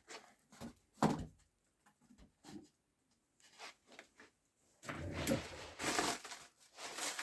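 Packaging being handled while a golf club is unwrapped: a few light knocks and taps, then a longer, louder stretch of rustling about five seconds in.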